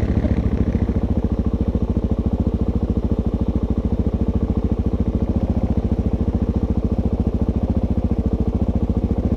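Suzuki DR-Z400 dual-sport motorcycle's single-cylinder four-stroke engine idling steadily at close range, with an even, rapid pulse.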